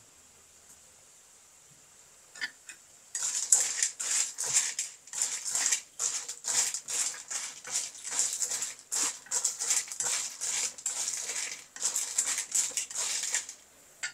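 Spatula stirring stir-fried sea snails in a pan, their shells scraping and clattering in a steady rhythm of about two strokes a second, starting about three seconds in.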